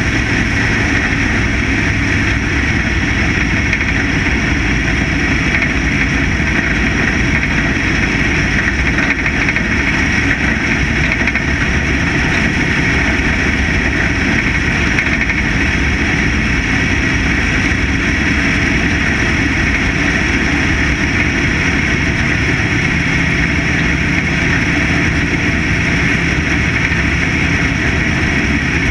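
Factory stock dirt-track race car's V8 engine running steadily, heard from on board the car with wind and chassis noise. There are no large revs up or down.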